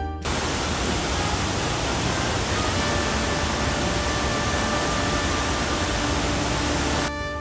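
Geratser waterfall rushing: a steady, even roar of falling water that cuts in just after the start and cuts off shortly before the end.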